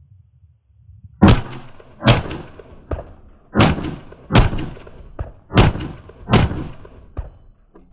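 AR-15 rifle with a 14.5-inch mid-length gas system, H buffer and Tubb flat-wire spring firing six shots as three doubles. The two shots of each pair are under a second apart and the pairs about a second and a half apart. A fainter click follows each pair.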